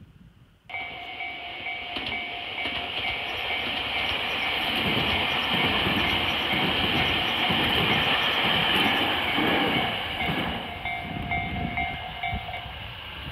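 Tobu 500 series Revaty limited-express electric train, two coupled sets, passing close by: a rumble with a rhythmic clatter of wheels over the rails, loudest midway. A level-crossing warning bell rings steadily through it, turns into separate strikes near the end and then stops.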